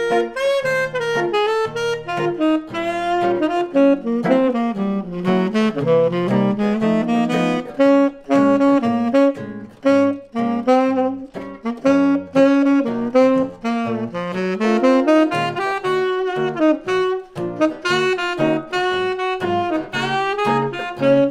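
Tenor saxophone playing a swing jazz solo line over rhythmic acoustic guitar chords.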